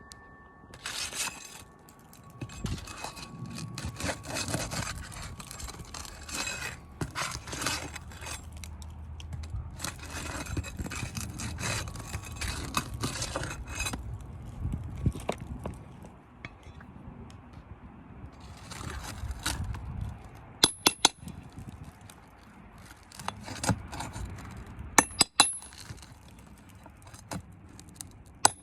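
A metal roofing tool scraping and prying at roof shingles, with several sharp metallic clinks in the second half.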